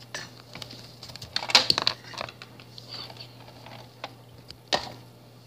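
Light plastic clicks and taps as toy figures are moved around inside a plastic dollhouse, with a quick cluster about a second and a half in and a single knock near the end, over a faint steady hum.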